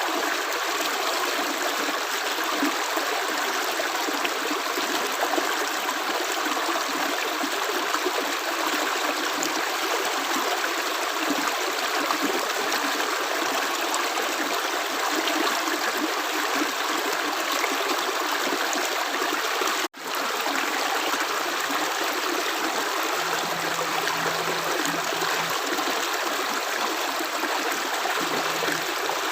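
Steady rush of running water, as of a stream, constant throughout. It cuts out for an instant about two-thirds of the way through, then resumes at once.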